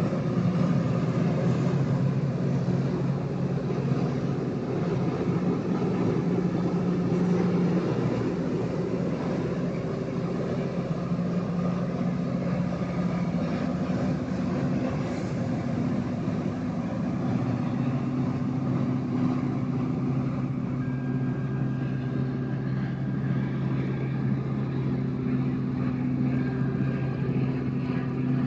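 Rail grinder running steadily: a continuous heavy engine note over a broad rushing noise. The engine's pitch drops a little past halfway.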